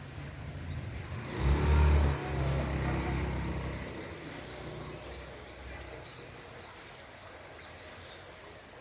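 A vehicle passes close by, loudest about two seconds in, and its engine rumble fades away. Small birds chirp faintly over the fading traffic.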